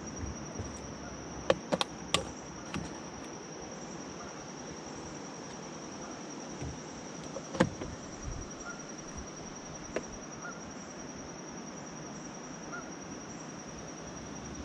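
An insect's steady, high-pitched pulsing trill, with a few sharp knocks: a quick cluster about two seconds in, the loudest one near eight seconds, and a smaller one about ten seconds in.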